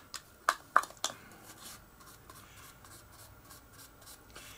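A small pot of paint being handled on a workbench: three light clicks in the first second, then faint rubbing and scraping.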